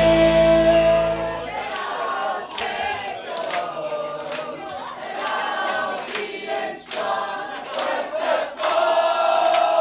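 A live band's chord is held and then cuts off about a second and a half in. A crowd of guests then sings along together without the band, with sharp hits keeping a beat.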